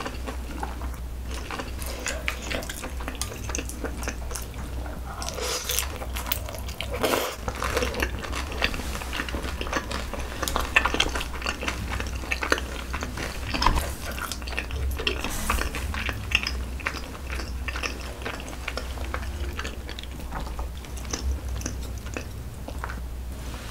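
Close-miked eating sounds: chewing a mouthful of saucy ramen and glass noodles, with many small wet mouth clicks and a few longer noisy slurps, the longest about 5 to 7 seconds in.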